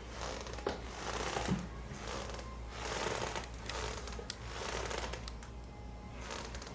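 Hands rubbing and kneading over clothing on a treatment table: soft rustling friction in slow, uneven strokes, with a few faint clicks.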